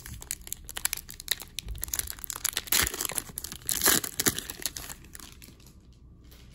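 Foil wrapper of a hockey trading-card pack being torn open and crinkled by hand, with the loudest crackles about three and four seconds in, then quieter as the cards come out.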